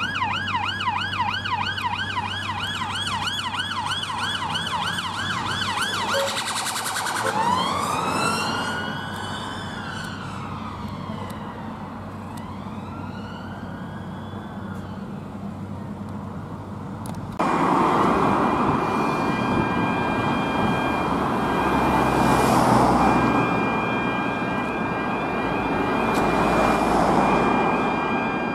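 Police car siren on a fast warble that changes after about six seconds to a slow rising-and-falling wail. About seventeen seconds in it gives way abruptly to the louder noise of fire engines in a station bay, with a steady high electronic tone over it.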